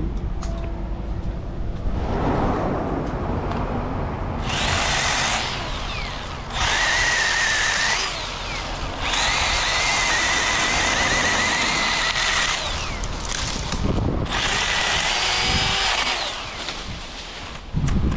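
Small handheld power saw cutting through a tree limb in about four runs of one to three seconds, its motor whining steadily while it cuts, with short pauses between runs.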